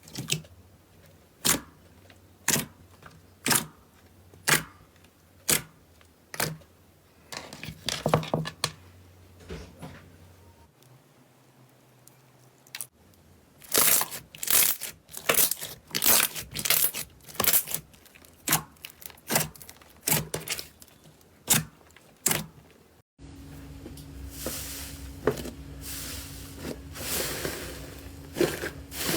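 Slime being handled, with sharp clicks and pops about once a second at first, then bursts of rapid crackling and popping. The background changes abruptly a few times, where one clip is cut into the next.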